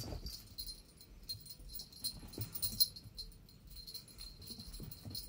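Cats scampering and pouncing on carpet, with soft thumps of paws and light, irregular metallic jingling from a collar.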